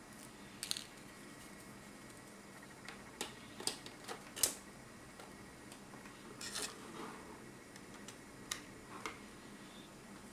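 Cables and a power adapter's plug being handled on a desk: scattered light clicks, taps and rustles, the sharpest click about four and a half seconds in.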